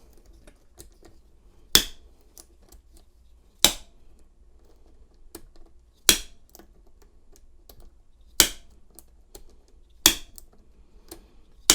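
A bump key in a Master Lock No. 220 pin-tumbler padlock being struck with sharp taps about every two seconds, six in all, to jar the pins to the shear line. Faint metallic clicks come between the strikes.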